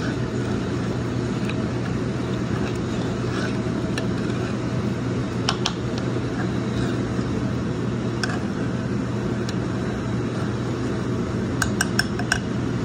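A steady low hum with a few light clicks of a metal spoon against the saucepan, four of them in quick succession near the end.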